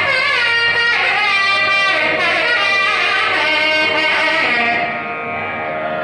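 Nadaswaram playing a Carnatic melody with sliding, ornamented notes over a steady drone. About five seconds in the melody stops and only the drone continues.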